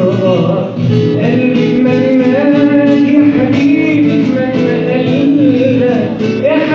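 A man singing long, sliding notes over a steadily strummed guitar, performed live.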